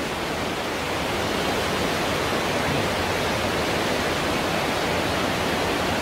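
Cave waterfall inside a limestone cave: a steady rush of a large volume of water pouring out of an opening in the rock and falling.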